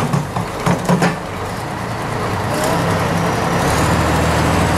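Diesel engine of a heavy wheel loader running and working harder from about three seconds in, with a few short knocks in the first second.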